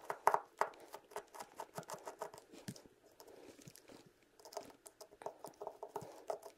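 Small screwdriver working the tiny screws of a baitcasting reel's side plate, with the reel handled on the bench: a quick, irregular run of light clicks and scrapes, thinning out briefly partway through.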